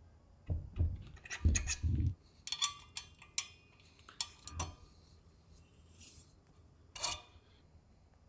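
Tools and bike parts being handled on a workbench: a few dull knocks in the first two seconds, then scattered sharp metallic clinks.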